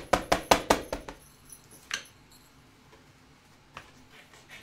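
Small ink pad tapped rapidly against a clear stamp to ink it, about five or six sharp taps a second, stopping about a second in, with one more tap near two seconds.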